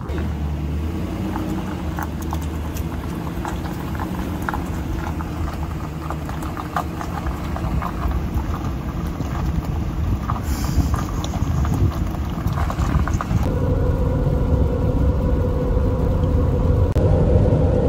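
Pickup truck driving in the rain, heard from inside the cab: steady road and engine noise that slowly grows louder, with scattered light ticks of raindrops hitting the windshield. A steady hum joins about two-thirds of the way through.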